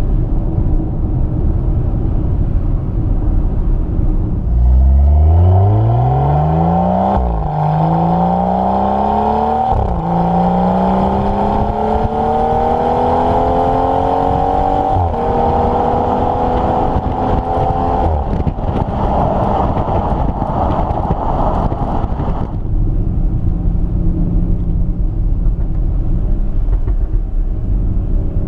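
2018 BMW X3 M40i's turbocharged inline-six accelerating hard out of a steady cruise, its pitch climbing through the gears with three quick upshifts. It holds a high, steady note for a while, then eases off near the end back to a low cruising drone with road noise.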